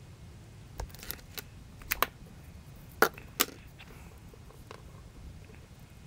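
A run of sharp clicks and light metallic clinks, about six in all, from tools and wire being handled on a workbench, the loudest pair about three seconds in.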